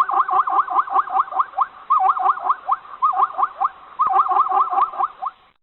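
An animal's rapid chattering call: a fast series of short rising chirps, about five a second, in three runs with brief breaks between them.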